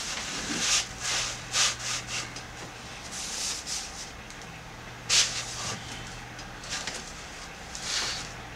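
Short scratchy rustles and scrapes of a large sheet of calligraphy paper being shifted and handled on the work table, the loudest about five seconds in, over a low steady hum.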